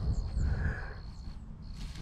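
Open-air lakeside ambience: a steady low wind rumble on the microphone, with a faint high, broken insect trill like a cricket's.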